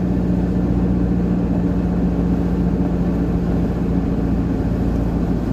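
4x4 vehicle driving along at steady speed: a constant low engine hum with road and tyre noise, unchanging throughout.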